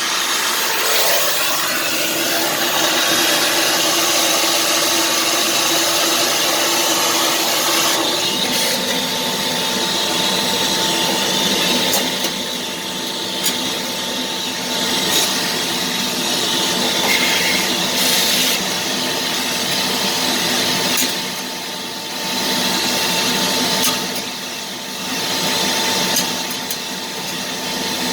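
A motor-driven tool running steadily with a whine over a wide hiss, during the cleaning of a furnace fan motor; the level dips a few times in the second half, with occasional sharp clicks.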